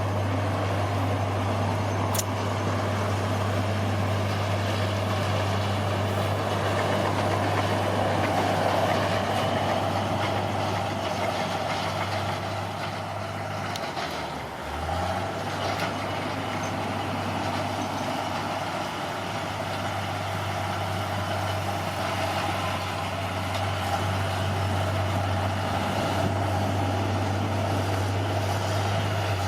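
Bulldozer's diesel engine running steadily under work, a deep even drone, with the engine note dipping briefly about halfway through before it settles back.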